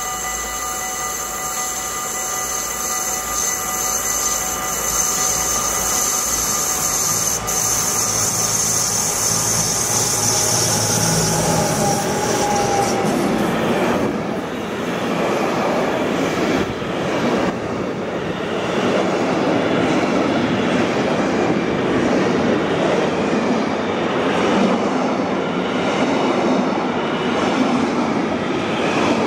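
A Traxx locomotive approaches with a steady whine and hiss and passes about halfway through. A long container train follows, its wagons rolling close by with a broad rumble and a rhythmic clatter of wheels on the rails.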